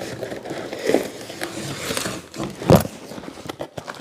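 Packaging material being handled and pulled from a cardboard box: scattered crackling and rustling, with one dull thump about two-thirds of the way through.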